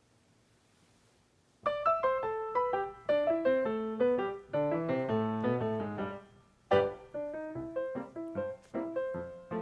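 Background piano music: a near-silent pause, then a gentle melody of single piano notes begins about one and a half seconds in, with a brief break near the middle.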